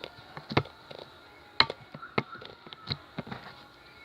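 Slime being worked by hand: scattered short, sharp clicks and pops, the loudest about one and a half seconds in.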